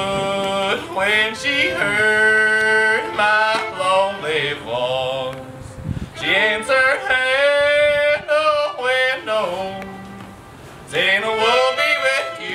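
Music: a solo voice sings long, sliding, held notes, breaking off briefly twice.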